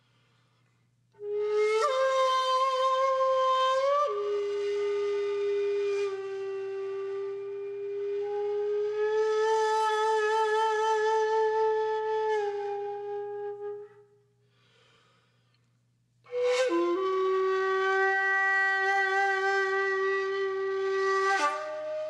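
Background music: a solo flute playing slow, long-held notes with vibrato. It starts about a second in, stops for about two seconds after the middle, and then resumes.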